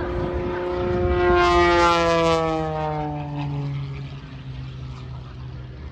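Propeller airplane flying past. Its engine and propeller tone grows louder to a peak about two seconds in, then drops in pitch and fades as it moves away.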